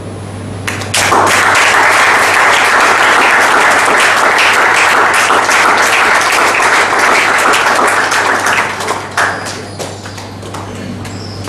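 Audience applauding, starting about a second in and dying away after about nine seconds, over a steady low hum.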